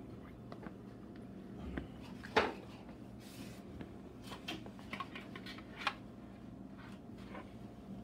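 A spatula knocking and scraping in a plastic mixing bowl as broccoli florets are moved onto parchment-lined baking sheets: scattered light clicks and rustles, the loudest knock about two and a half seconds in.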